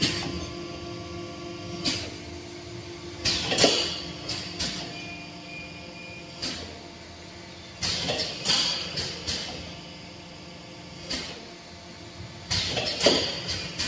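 Electro-hydraulic power unit of a multi-unit dosing and static mixing machine running: electric motors and hydraulic pumps give a steady hum, while the dosing units cycle with short surges of hissing and clatter every one to three seconds.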